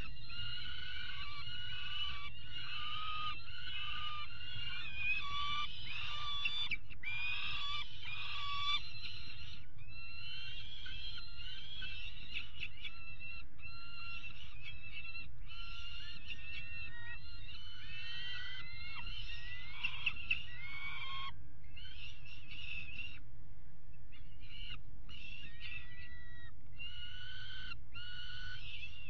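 Young peregrine falcons begging for food: a fast run of repeated, harsh wailing calls that become more spaced out in the last third. A steady low rumble lies underneath.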